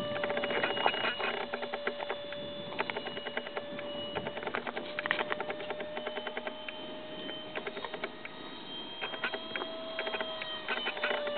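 Electric ducted fan of a small RC Albatros model jet whining steadily in flight, its pitch drifting slightly down and up as it flies about, heard from the ground. Many irregular clicks and crackles run over it.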